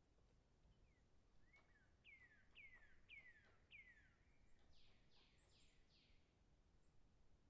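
A bird singing faintly: four clear whistled notes, each sliding down in pitch and about half a second apart, followed by four quicker, higher, rougher notes that also fall in pitch.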